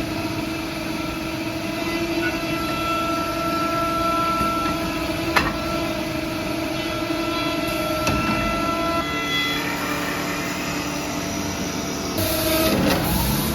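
Woodmaster WM-70R4L four-tool CNC wood lathe running as it turns wooden knobs: a steady machine hum under a rush of noise, with two sharp clicks and a change in the sound about nine seconds in, and a brighter hiss near the end.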